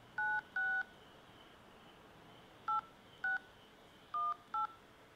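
Touch-tone (DTMF) keypad beeps from an iPhone's call keypad as digits of a card number are keyed into an automated phone menu. There are six short beeps in three pairs: two near the start, two about three seconds in, and two near the end.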